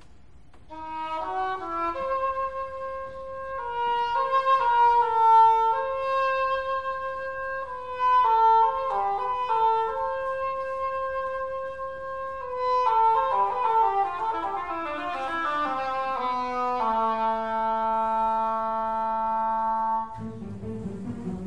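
English horn playing a solo melody, a single line of held and moving notes, with a descending run in the middle that ends on a long-held low note. About a second before the end, lower accompanying instruments of the string orchestra come in.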